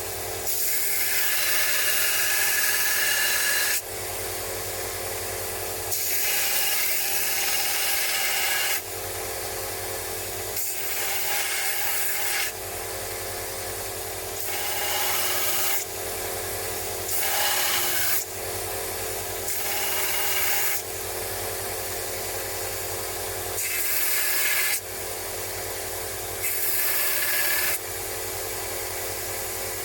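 A small electric power tool runs steadily while a metal wrench is pressed against its abrasive in repeated passes of one to three seconds each, about eight in all. Each pass adds a loud rasping hiss, and on some the motor's pitch dips under the load.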